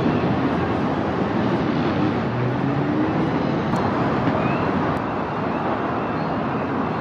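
Steady city traffic noise from the streets below, with faint short high tones now and then; the level drops slightly about five seconds in.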